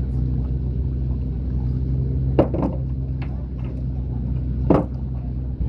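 Steady low hum of a running engine, with two sharp knocks: one about two and a half seconds in and a louder one near five seconds in.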